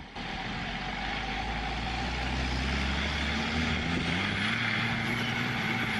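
Loaded timber truck's diesel engine pulling under throttle through mud and water, running steadily, its note rising a little past halfway as the driver gives it more throttle and then holding.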